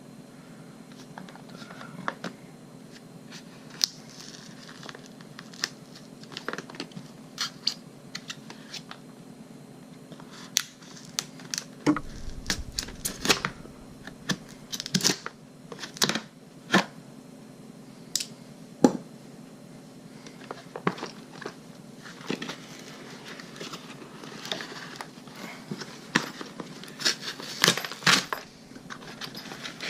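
A parcel being opened by hand: packing tape and cardboard tearing, wrapping crinkling, with scattered sharp clicks and knocks as the contents are handled.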